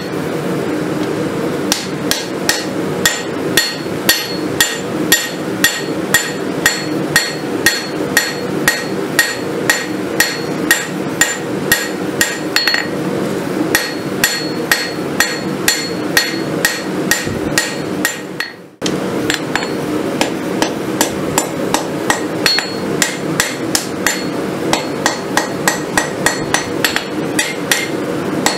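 Hand hammer striking red-hot steel on a steel anvil as a kukri blade is rough-forged from an old farrier's rasp. Sharp metallic blows come at an even pace of about two to three a second, with a short break about two-thirds of the way through, over a steady background hum.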